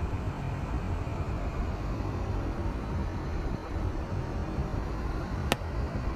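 Car driving through flooded streets, heard from inside the cabin: a steady low rumble and hiss of tyres on water-covered road. A single sharp click near the end.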